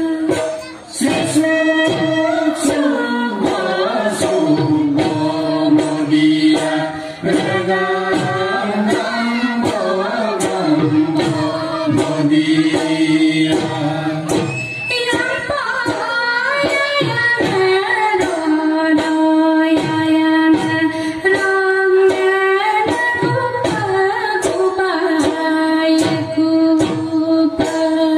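Mising folk song for the Gumrag dance, a woman singing over a steady drum beat, played through a stage loudspeaker.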